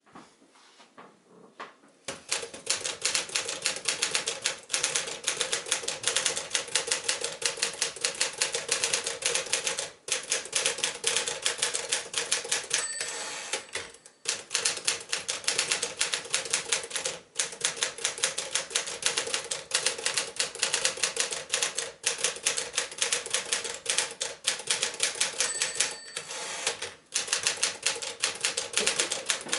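Tower Quiet-Tabulator portable typewriter, a Smith-Corona Sterling mechanism, being typed on fast: a dense, steady run of keystroke clicks starting about two seconds in, with a few short pauses. Twice, at about 13 s and 26 s, a short ring like the margin bell sounds just before a pause.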